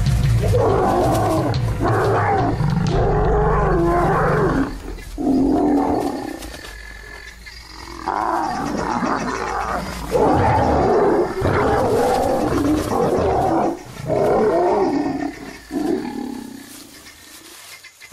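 Two male lions fighting, a series of loud roars and growls in bouts of one to three seconds with short gaps between them.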